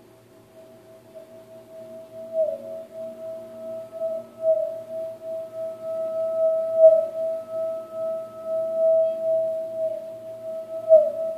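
Tibetan singing bowl held in the hand and rubbed around its rim with a mallet: one clear, steady singing tone with a fainter higher overtone, building up from near silence over the first few seconds and wavering in loudness as the mallet circles.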